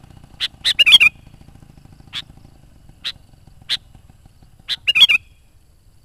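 Sooty-headed bulbul calling: sharp single notes about once a second, with two short bubbling phrases, one about a second in and one about five seconds in.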